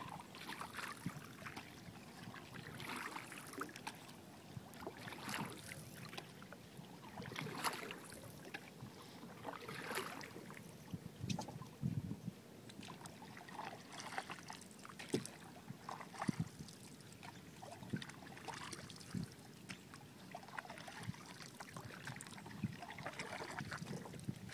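Wooden canoe paddle dipping and pulling through calm water, with soft splashes and drips every couple of seconds; faint.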